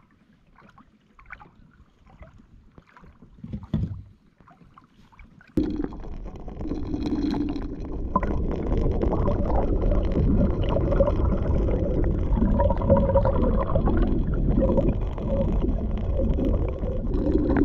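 Water rushing and gurgling over an underwater camera as it is pulled through the water with a diving lure. It is a dense, muffled rumble that starts suddenly about five seconds in. Before it, there are only faint lapping and small knocks at the kayak.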